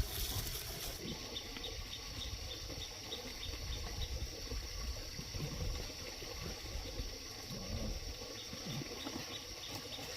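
Insects buzzing steadily, with a faint high chirp repeating a few times a second, over a low rumble.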